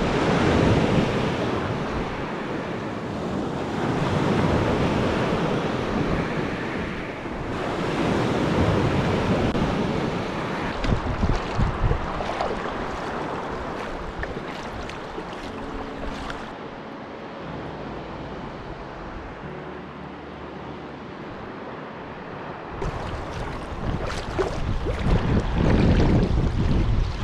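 Small lake waves washing onto a pebble beach, swelling and easing every few seconds. Then kayak paddle strokes splash and water laps along the hull, with wind on the microphone growing stronger near the end.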